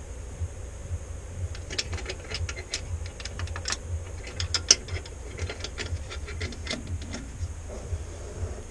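A ratchet wrench clicking in short, irregular runs as a bolt is turned at the lift-pump mount of a Cummins 6BT diesel engine block. One click about halfway through is louder than the rest. A steady low hum runs underneath.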